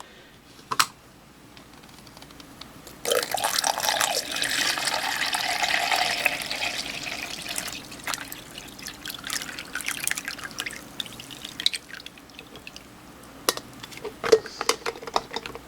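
Water pouring in a steady stream, starting about three seconds in, then thinning to a trickle and stopping: water being added for the coffee maker. A few light clicks and knocks are heard around it.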